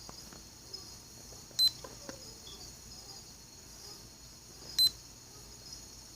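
Digital kitchen timer beeping as its buttons are pressed: two short high-pitched beeps, about three seconds apart.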